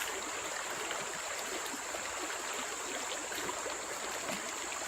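Stream water running steadily, an even continuous rush.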